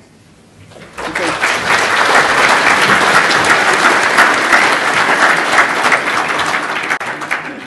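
Audience of a few hundred applauding. The clapping starts about a second in, holds steady and cuts off suddenly at the end.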